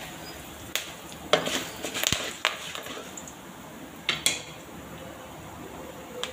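Curry leaves crackling in hot oil during tempering in an aluminium kadai, with mustard seeds and dals. The frying gives a faint steady sizzle, broken by a handful of sharp pops and clicks scattered through.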